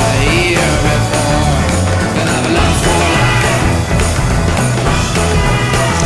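Loud rock music soundtrack with a steady beat.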